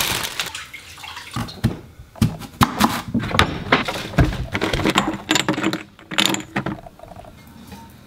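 Kitchen handling noise: spice jars knocking and clicking together as a cupboard carousel of jars is rummaged through, a string of irregular sharp clicks and knocks that thins out near the end.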